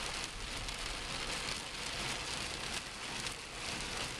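Heavy storm rain pelting a car's roof and windshield, heard from inside the cabin as a dense, steady patter, with the low rumble of the car driving on the wet highway underneath.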